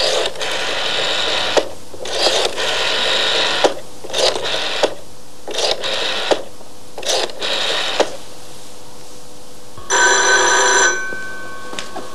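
Rotary-dial telephone being dialled: about five pulls of the dial, each followed by the dial's clicking return. About ten seconds in, a telephone bell rings once for about a second: the called phone ringing.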